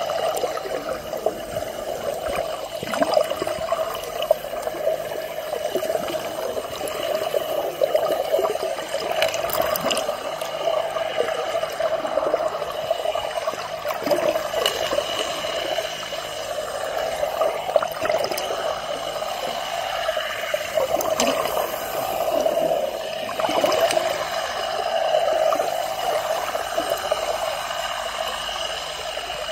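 Underwater water noise picked up by a submerged camera: a steady, muffled wash of moving water with scattered faint clicks.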